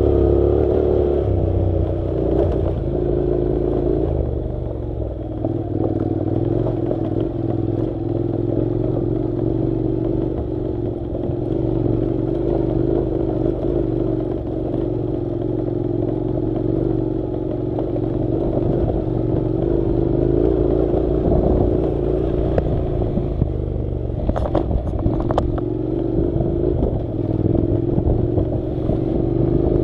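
Honda NC700's parallel-twin engine running at a steady, moderate pace while the motorcycle rides a dirt track. A few sharp clicks come a little after three-quarters of the way through.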